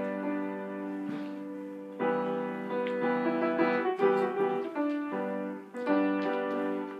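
Piano music: sustained chords and notes changing every second or so.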